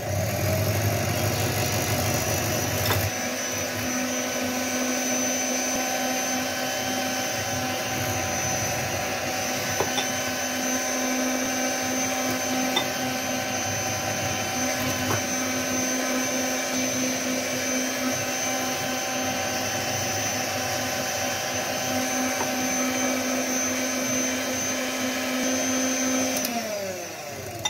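Electric hand mixer running steadily, its twin beaters whisking eggs beaten with sugar as oil is trickled into the batter. Near the end the motor winds down with a falling pitch and stops.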